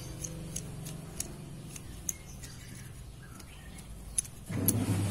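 Light metallic clicks and ticks of a steel hand tool working on an angle grinder's armature to pull off its worn, loose front bearing. Over a faint low hum, an engine's low drone comes up loudly about four and a half seconds in.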